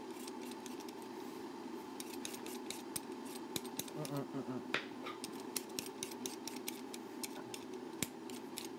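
Kitchen knife tapping and clicking against a cutting board as watermelon is sliced into pieces: quick, irregular taps that grow thicker about halfway through, over a steady background hum.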